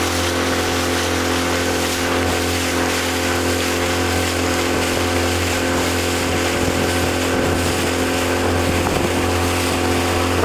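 Speedboat engine running at a steady pitch, a low drone with an even hum above it, over a continuous rush of wind and water.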